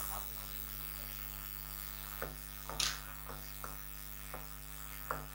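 Steady electrical mains hum, with a few faint taps and one brief scratchy swish of a stylus writing on an interactive touchscreen board.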